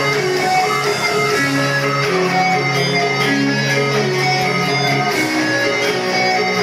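Live rock band playing, electric guitar to the fore, heard from the audience.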